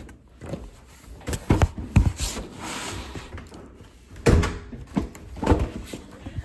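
A door shutting and a delivered box being handled: a string of knocks and thumps, the loudest a little past four seconds in, with a short rustle around the middle.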